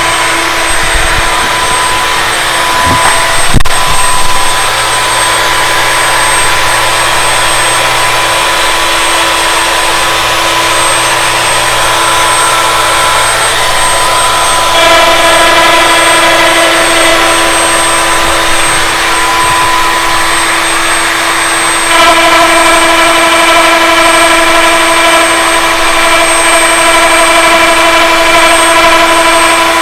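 Wood router running on a lathe copying attachment, with the lathe turning, giving a loud steady whine as it cuts the wood. The tone shifts about halfway through and again later as the cut changes, and there is a sharp knock a few seconds in.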